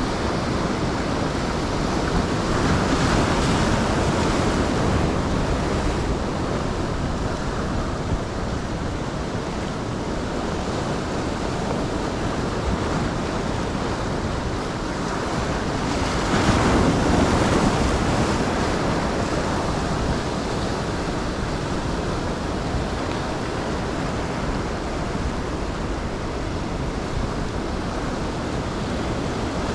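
Ocean surf: waves breaking and washing up the shore in a steady rush, with two louder breakers about three seconds in and again about sixteen seconds in.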